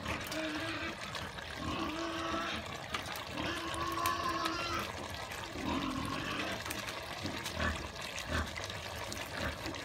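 Meat stew simmering in an aluminium pot over a fire, a steady bubbling, watery sound, with a metal ladle stirring it about four seconds in and a couple of low knocks near the end.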